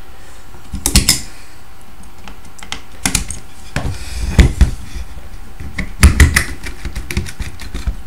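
Metal clicks and knocks from the chassis modules of a 1950s vacuum-tube interphone control box being handled and pulled apart by hand. They come in short clusters about a second in, around three to four and a half seconds in, and again from about six seconds in.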